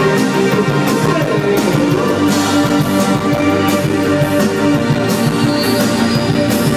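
Live band music from the stage PA: drums with regular cymbal hits under sustained pitched instruments, heard loud from the crowd.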